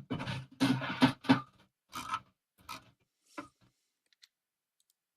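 Snoring: a run of short, raspy breaths that weaken and come further apart over about three and a half seconds, followed by a pause of about a second and a half.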